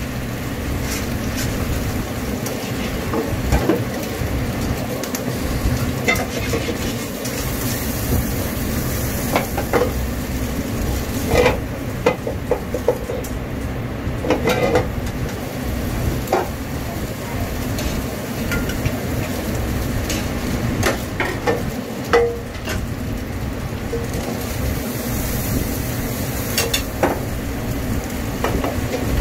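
Food sizzling in a nonstick frying pan over a gas burner as a wooden spatula stirs and scrapes, with sharp knocks of utensils against the pan every few seconds. A steady low rumble runs underneath.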